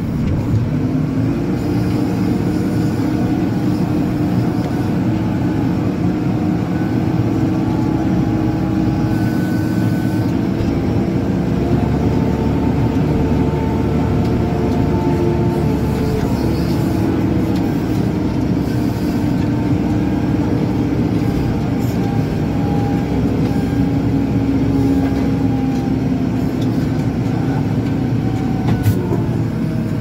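Diesel engine of a JCB 4CX backhoe loader running steadily while the machine drives along, heard from inside the cab, with a whine that slowly rises and falls in pitch.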